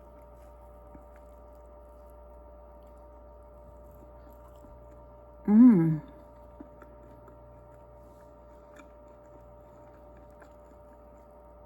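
Quiet chewing of a chewy cake, with a short hummed "mm" about halfway through. A steady faint electrical hum lies underneath.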